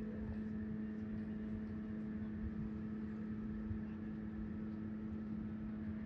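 Steady city-street ambience: a constant low droning hum holding one pitch with fainter higher tones above it, over a low rumble of slow traffic.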